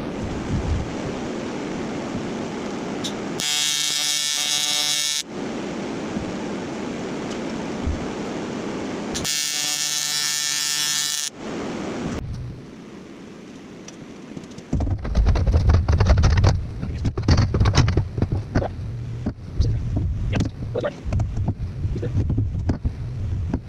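A small electric motor whining in two bursts of about two seconds each, over a steady rushing noise, followed by irregular knocks and clunks of handling.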